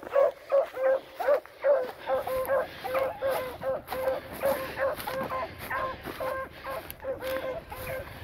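Beagles baying in a fast run of short, repeated calls, two to three a second, as hounds give voice while running a scent trail.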